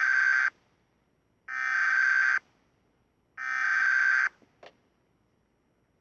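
Emergency Alert System SAME header sent three times: three buzzy, chirping digital data bursts of about a second each, with about a second between them. They are the coded start of an emergency alert breaking into the weather radio broadcast.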